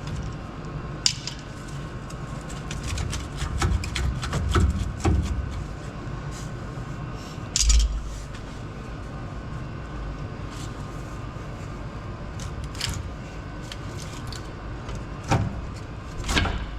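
Hand tools clinking and knocking on metal parts while a truck's rear brake caliper is worked loose, with several heavier thumps among the clicks, over a steady low hum.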